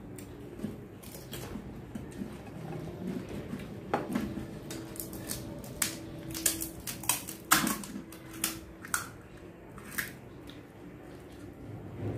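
Crisp, hollow pani puri shells being cracked open with the fingers and handled over steel bowls: an irregular run of sharp crackles and clicks, thickest and loudest in the middle stretch.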